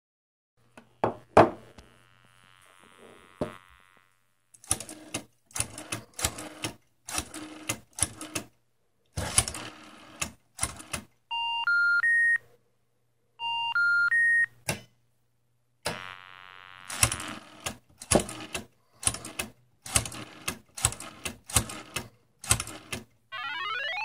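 A rotary phone dial clicks out numbers in quick bursts of pulses, between stretches of an electronic buzzing tone. Twice, a three-note rising beep plays, the telephone 'number not in service' intercept tone, meaning the dialled number was wrong. A sweeping electronic effect starts near the end, with a faint low hum underneath throughout.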